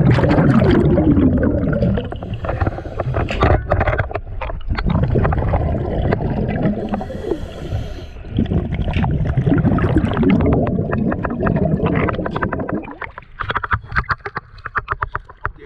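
Exhaled air bubbles from a diver's regulator gurgling and rushing underwater in long bursts, one per breath. Near the end the bubbling stops and gives way to light splashing and dripping as the camera breaks the surface.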